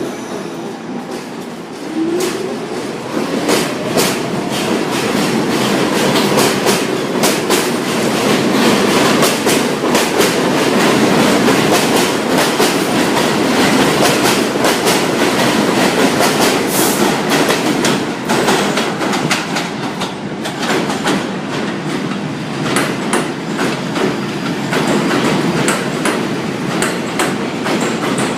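A New York City subway train running past on the rails, its wheels clattering rhythmically over the rail joints; the sound swells about two seconds in and stays loud throughout.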